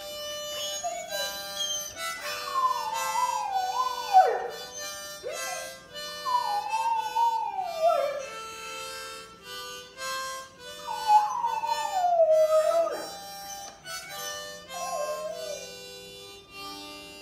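Harmonica playing held chords while a dog howls along: three long howls that slide down in pitch, then a couple of shorter ones near the end.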